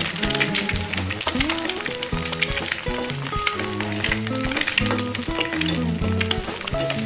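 Beaten eggs frying and sizzling in hot fat in a nonstick pan, stirred and pushed about with a slotted spatula, over background music.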